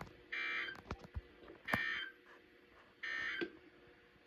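Emergency Alert System end-of-message data tones on NOAA Weather Radio: three short bursts of data tones about a second and a third apart, signalling the end of the required weekly test.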